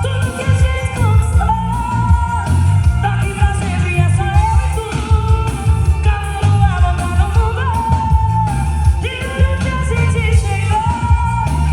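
A female singer singing a pop song live with a band, with a strong beat and heavy bass under the vocal line.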